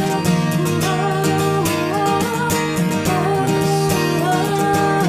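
Worship band music: an instrumental interlude with acoustic guitar and a steady beat, a melody line gliding over sustained chords.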